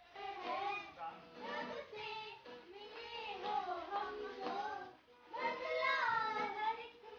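Young girls singing a song to an acoustic guitar strummed alongside them.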